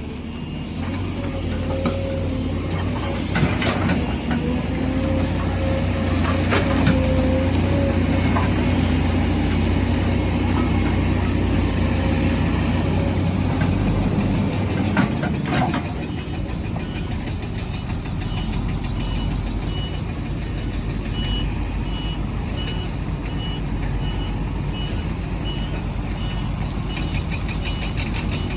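Heavy diesel construction machinery running, with a few sharp metal clanks in the first half. About halfway the engine sound drops, and a high reversing alarm starts beeping steadily.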